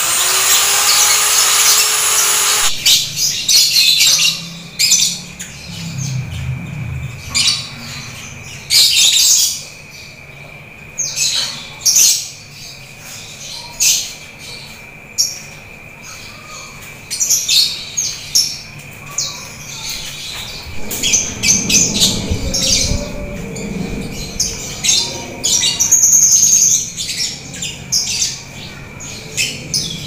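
Caged canaries singing, a dense string of quick high chirps and trills. An electric drill runs for the first few seconds, then stops.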